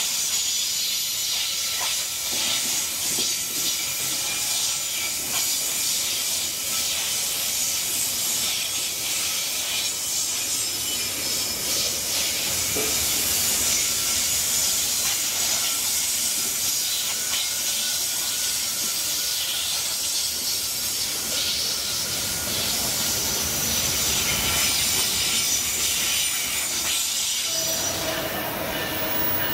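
Loaded gondola wagons of a broad-gauge MRS freight train rolling past, their steel wheels on the rails giving a steady high-pitched hiss with a faint squeal. Near the end this gives way to a lower steady hum with several tones, from an approaching electric commuter train.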